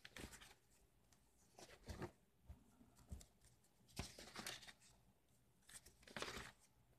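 Faint rustle of coffee-dyed paper pages being turned on a ring binder, a few soft page turns spaced a second or two apart.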